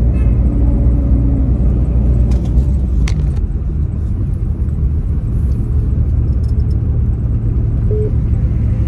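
Steady low rumble of a car's road and engine noise heard from inside the cabin while driving, with a few small clicks about two and a half to three seconds in.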